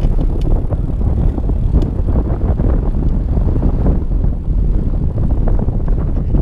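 Wind buffeting the microphone of a camera carried on a moving bicycle: a loud, low, fluttering rumble, with a few faint ticks.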